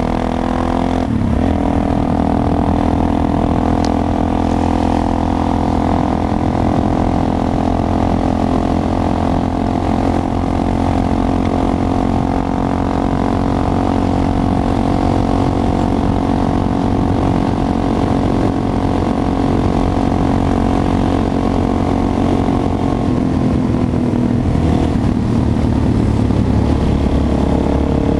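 Suzuki DR-Z400 supermoto's single-cylinder four-stroke engine running under way at a steady pitch while cruising, with the pitch dropping about 23 seconds in and then climbing again near the end.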